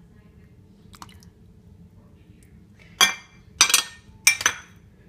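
A small ceramic bowl clinking against a glass mixing bowl: a faint tap, then three sharp knocks with a short ring between about three and four and a half seconds in, as egg and vanilla are emptied out of it.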